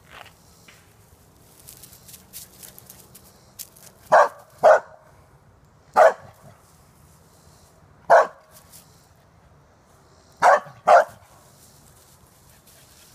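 An Australian Shepherd barks six sharp single barks, in a pair, two singles and another pair, at an armadillo in the underbrush. Before the first bark, dry leaves crackle lightly underfoot.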